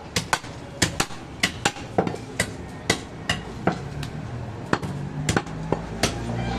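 A long butcher's knife chopping mutton on a round wooden log block: sharp, irregular chops, about two or three a second.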